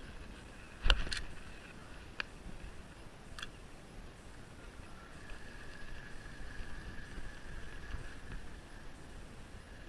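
Spinning fishing reel: a sharp click about a second in, a few lighter clicks, then a steady whir of the reel being cranked in during the second half, over a background haze of wind and water.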